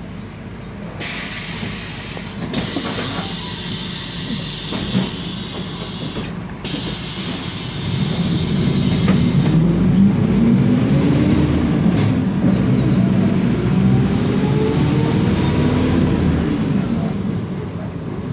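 Mercedes-Benz OF-1721 bus's diesel engine revving up and easing off under acceleration, with a differential whine that rises and then falls in pitch. Before it, for the first several seconds, a strong hiss.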